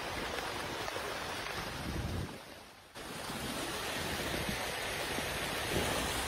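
Steady noise of heavy rain falling on floodwater, with wind on the microphone. It fades away a little over two seconds in and starts again abruptly about a second later.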